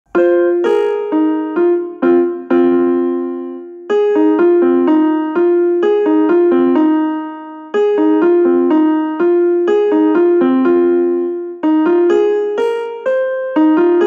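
Phone ringtone: a short, bright piano-like keyboard melody of struck, decaying notes, the same phrase starting over about every four seconds.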